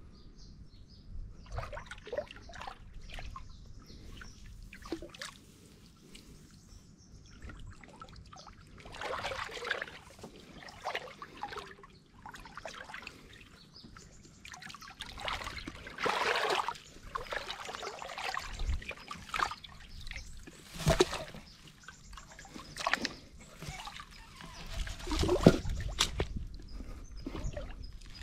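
Shallow water sloshing and splashing in irregular bursts as a floating block is pushed and moved through it, the strongest splashes near the end.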